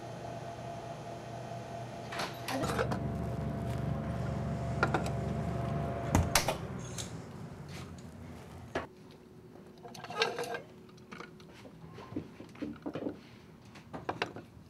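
Steady equipment hum in a small lab room. A louder low machine hum with a few knocks runs for about six seconds, then gives way to quiet, scattered clicks and taps of plastic sample tubes and racks being handled.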